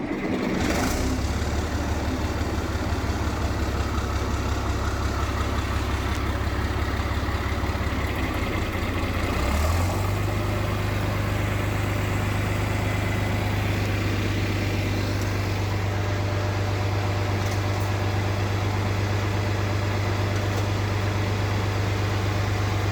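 John Deere 4020 tractor engine running at idle just after a cold start, a steady drone whose engine speed steps up about ten seconds in and then holds.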